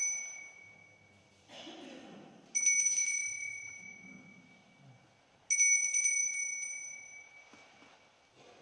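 Altar bell rung at the elevation of the host after the consecration. An earlier ring is fading, then the bell is rung twice more, about two and a half seconds in and again three seconds later. Each ring starts sharply with several high, clear tones and fades over about two seconds.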